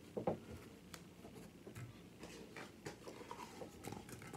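Faint, irregular light taps and crackles as chopped tomato and lettuce are dropped by hand and tipped from a plastic bowl onto crisp tortilla chips, with one sharper tap about a third of a second in.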